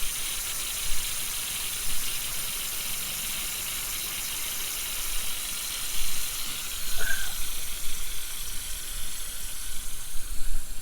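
Steady, even hiss with low rumbling thumps from about six seconds in, and a brief high chirp about seven seconds in.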